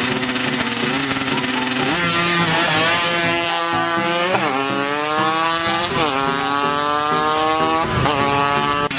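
Tuned Kawasaki Ninja drag bike engine accelerating hard through the gears. From about two seconds in the pitch climbs, drops sharply at each of about three upshifts, and climbs again.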